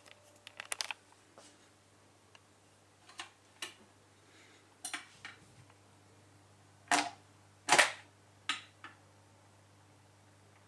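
Garrard SL65B record changer cycling: a string of mechanical clicks and knocks, the two loudest about 7 and 8 seconds in as the record drops onto the platter, over a faint steady low hum.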